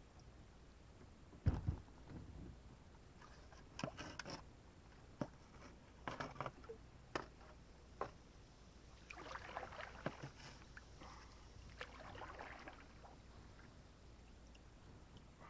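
Faint sounds from a kayak on the water. A heavy thump comes about a second and a half in, then scattered sharp knocks on the hull, then two stretches of splashing from the paddle later on.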